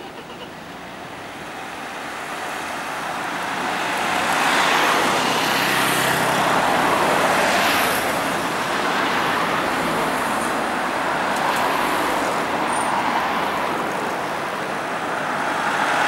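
Cars driving past close by one after another as road traffic moves off again. Tyre and engine noise swells from about two seconds in, is loudest between about four and eight seconds, and rises again near the end.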